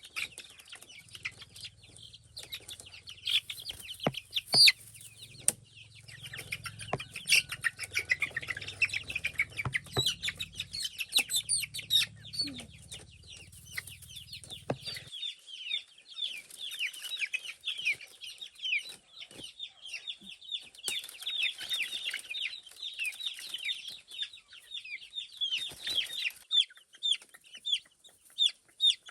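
A flock of chickens clucking and peeping, many short calls overlapping, with a few sharp knocks in the first half.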